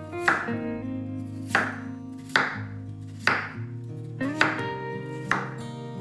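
Chef's knife slicing through a peeled raw potato and striking a wooden cutting board: six cuts, roughly one a second, with light background music.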